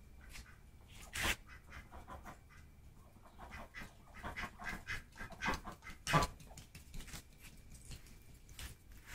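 Domestic ducks giving short, soft quacks in quick runs, with a louder one about six seconds in.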